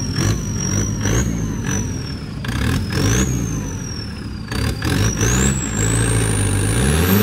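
Off-road vehicle's engine revving up and down repeatedly under load, with a high whine rising and falling alongside it and the revs climbing near the end.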